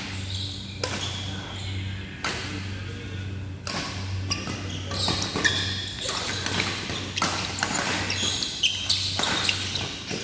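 Badminton rally: sharp cracks of rackets striking the shuttlecock about every second or so, with rubber shoes squeaking on the court floor, over a steady low hum.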